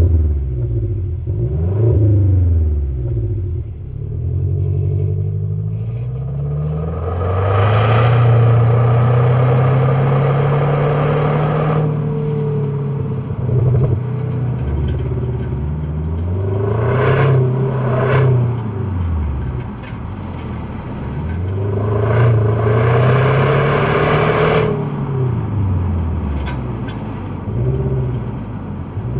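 Subaru Levorg Layback's turbocharged CB18 flat-four with unequal-length headers, heard at the tailpipe of an STI performance muffler while the car is driven. The exhaust note rises and falls in pitch through several accelerations and lift-offs, with the longest pull about a quarter of the way in, and it grows into a louder rush on the hardest pulls.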